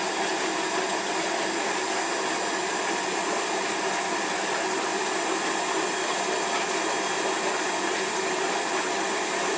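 Steady rushing hiss of aquarium equipment, filter and pump water flow, running evenly throughout with no change.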